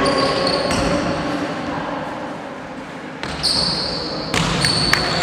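A basketball bouncing on a gym floor, the hits echoing in the large hall, with a few short high-pitched squeaks and faint voices in the background.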